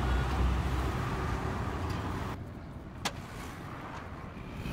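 A motor vehicle engine running with a steady low rumble, and a single sharp click about three seconds in.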